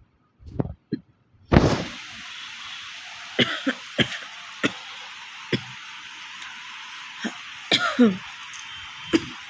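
A person coughing in short, separate dry coughs and clearing the throat, about a dozen times, the coughs of a genuine dry cough. A steady hiss comes on abruptly about a second and a half in and stays under the coughs.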